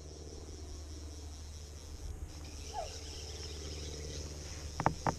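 Steady high-pitched trill of crickets, with a brief falling chirp about halfway through and two sharp clicks near the end.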